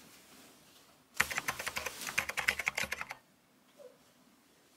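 Bedding rustling and flapping as a bed is made: a quick run of crisp rustles and snaps lasting about two seconds, starting about a second in.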